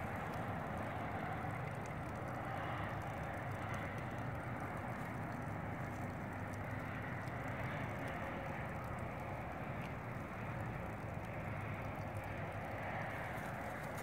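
Steady distant engine noise, an even rumble that swells and fades slowly.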